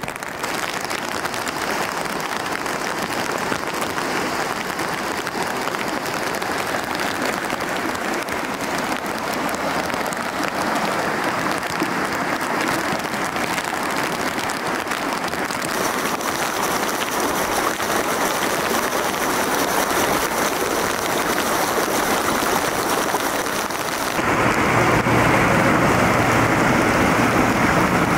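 Steady noise of heavy rain and rushing floodwater. Near the end it gets louder, and a tractor's engine running through the water adds a steady low hum.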